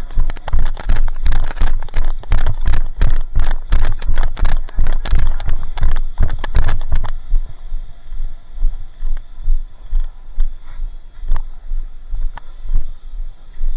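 Running footsteps with gear rattling, heavy thumps at a steady pace of two or three a second, slowing to a few scattered steps and clicks about halfway through.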